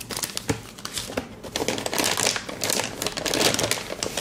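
Plastic packaging crinkling and rustling as it is handled. Sparse crackles at first, then denser and louder from about a second and a half in.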